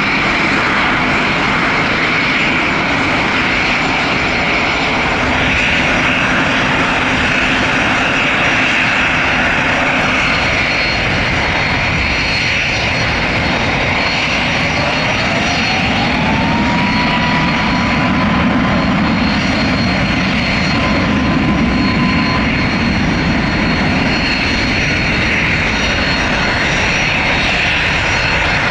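Jet airliner engines running steadily with a loud, even noise. About halfway through, a whine rises in pitch and then holds, as the engines spool up.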